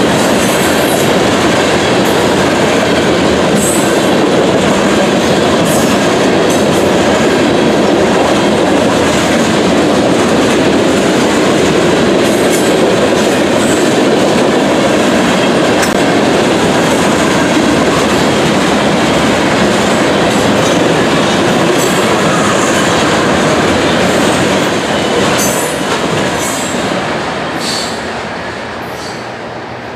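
Freight cars of a mixed freight train rolling past at speed: a steady rumble and clatter of steel wheels on rail, with brief high-pitched wheel squeals now and then. The sound fades as the end of the train passes, from about 25 seconds in.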